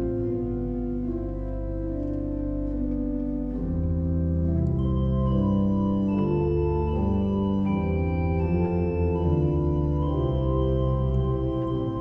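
Pipe organ playing slow, held chords over a deep pedal bass, the harmony changing every second or so; it grows a little fuller about four seconds in.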